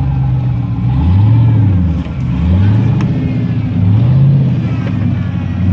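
Twin-turbo 5.3-litre V8 in a Jeep being worked on and off the throttle: the engine note swells up and falls back three times, a little over a second each, with a fourth rise starting near the end.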